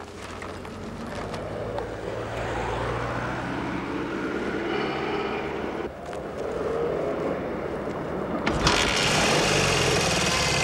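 Motor vehicle engine running, growing louder over the first few seconds. Music with ringing, bell-like tones comes in suddenly about two seconds before the end.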